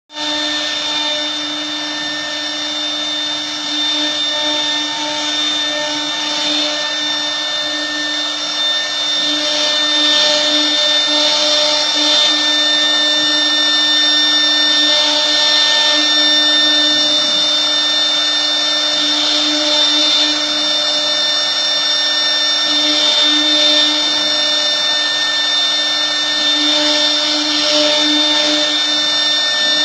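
CNC router spindle running with a steady high whine while it carves, the cutting noise swelling and easing as the tool moves through the material.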